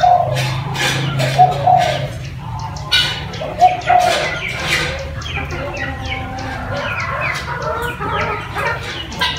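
Mixed birds calling: short low two-part coo-like notes recur several times over a steady stream of higher chirps and quick falling whistles.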